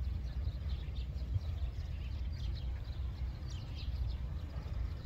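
Magpies giving short, high calls here and there over a steady low rumble.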